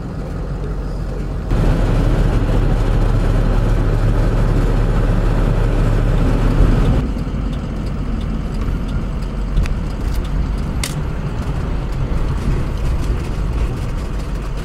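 Engine and road noise of a vehicle heard from inside its cabin while driving. It gets louder about a second and a half in as the vehicle pulls away from a stop sign and speeds up onto the highway, then settles into a steady cruise.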